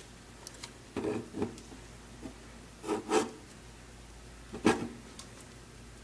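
A plastic DC power jack and a laptop motherboard rubbing and knocking together in hand as the jack's pins are worked back into the board. There are three short scraping bursts about two seconds apart, and the last, near the end, is the sharpest.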